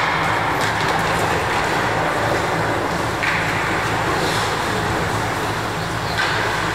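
Steady noise of an indoor ice rink during a youth ice hockey game: an even low machine hum, with a few faint clicks and scrapes of sticks and skates on the ice.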